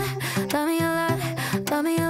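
Background music: a melody of held notes that slide into pitch, over a steady beat.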